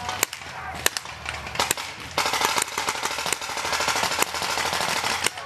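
Paintball markers firing: a few separate sharp pops at first, then dense rapid fire from about two seconds in.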